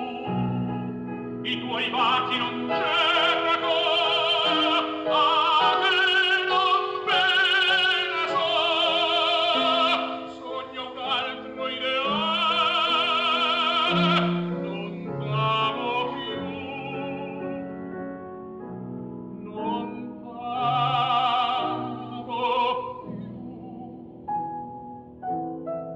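Opera music: a singer with a wide vibrato over instrumental accompaniment, quieter for a stretch after the middle before the voice swells again.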